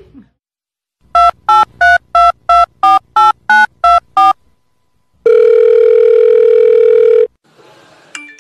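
Telephone keypad dialing: about ten short two-tone beeps at roughly three a second, as a number is dialed. It is followed by one steady phone tone lasting about two seconds.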